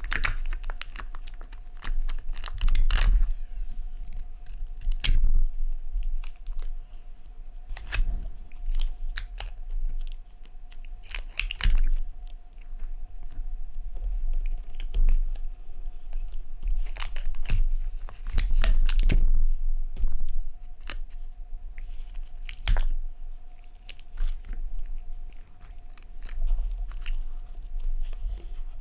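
A cat batting and tugging at cellophane tape on a plastic tape dispenser, heard close up: irregular taps, clicks and crinkles with low bumps against the desk. It gets loudest about three seconds in and again around eighteen seconds.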